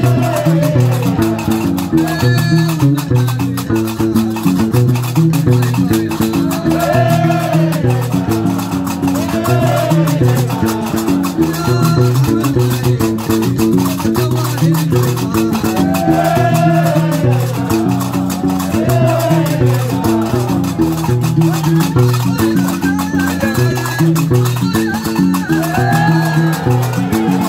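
Algerian Diwan music. A guembri bass lute repeats a low riff, iron qarqabou castanets clack in a fast, steady rhythm, and voices sing short recurring phrases over them.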